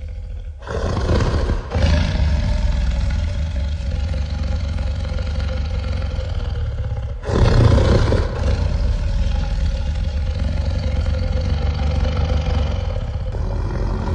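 Fan-made dragon roar sound effect with echo: two long, deep roars, the first starting just under a second in and the second about seven seconds in, each hanging on and fading over a steady low rumble.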